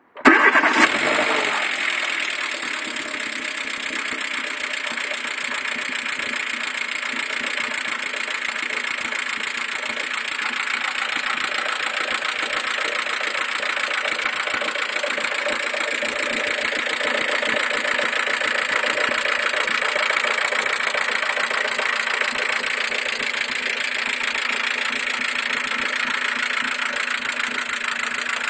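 Mercedes-Benz A140's 1.4-litre four-cylinder petrol engine starting, with a brief loud flare as it catches. It then settles into a steady idle.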